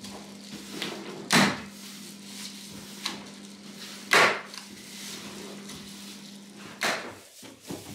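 A hand staple gun fastening foil bubble insulation to the floor: three loud, sharp clacks about three seconds apart, with a couple of fainter clicks between.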